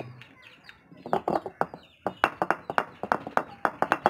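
Stone roller of an ammi knocking and rolling on the stone grinding slab as boiled raw bananas are crushed. It makes a rapid run of sharp taps, about three or four a second, starting about a second in.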